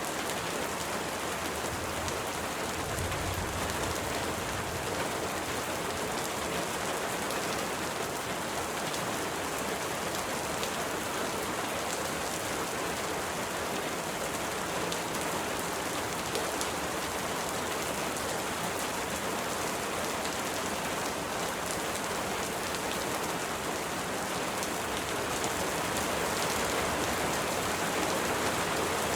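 Steady rain falling and pattering on surfaces, with individual drops ticking through the even hiss.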